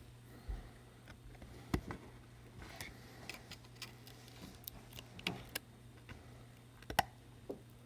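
Irregular small clicks and ticks of metal tweezers prying at a part inside an iPhone 7's housing, over a low steady hum.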